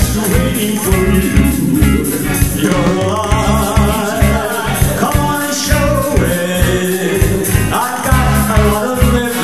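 Two male singers performing a song live into handheld microphones, over upbeat accompaniment with a steady bass beat.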